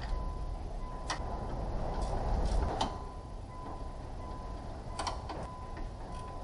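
Scattered sharp clicks and light knocks, about four over a few seconds, from hand tools and parts being handled during car radiator removal, over a steady low background rumble.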